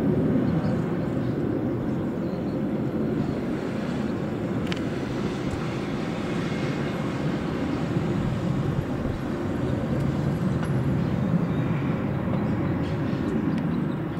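Airbus A300-600ST Beluga's twin General Electric CF6 turbofan engines heard from the ground as it flies over on approach to land: a steady low jet rumble.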